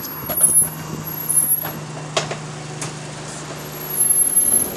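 Alexander Dennis Enviro200 bus running, heard from inside: a steady low hum that stops near the end, a thin high whine that comes and goes, and a sharp click about two seconds in.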